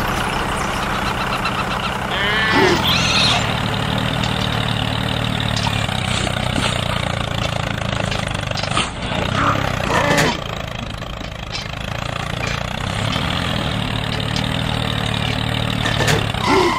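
Diesel tractor engine running steadily, with a few short higher sounds over it about two to three seconds in and again near the middle.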